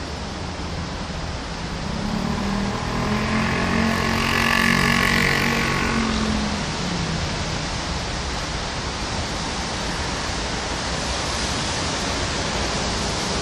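Steady rainfall. A vehicle passes on the wet street: its engine hum and tyre hiss grow from about two seconds in, are loudest around four to five seconds, and fade by about seven seconds.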